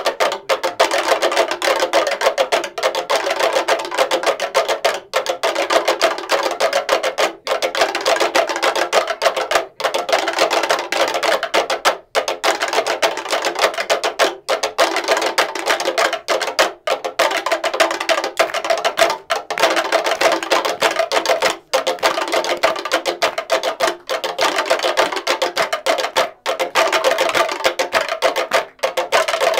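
A group of people beating out a rhythm on a long bamboo pole laid on the floor: a dense, woody clatter of many knocks, with a short break in the pattern about every two and a half seconds.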